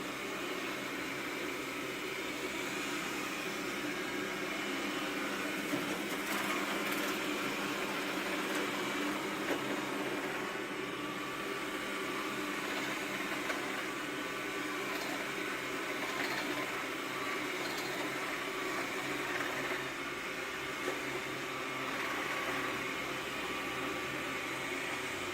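Xiaomi Mi robot vacuum cleaner running steadily, its fan and brushes humming, with a few faint light clicks.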